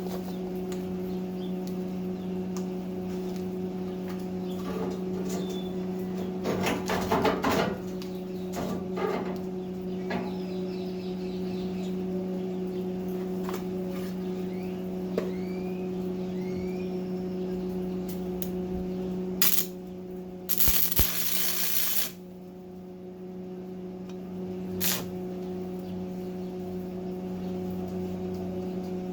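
Stick welding tack welds: two short bursts of arc crackle, the second, about twenty seconds in, the loudest, over a steady hum, with scattered clicks and a few bird chirps in between.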